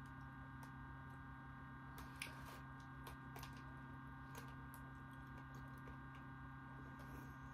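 Faint, scattered small clicks and crackles of popping candy and crunch as the cream filling of an Oreo Space Dunk cookie is eaten, over a steady electrical hum.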